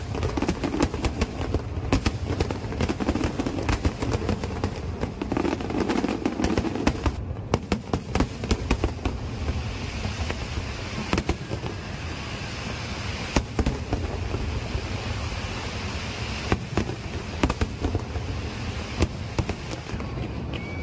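Fireworks display going off: a fast string of bangs and crackles for the first seven seconds or so, then more spaced-out bangs with a steady crackling hiss between them.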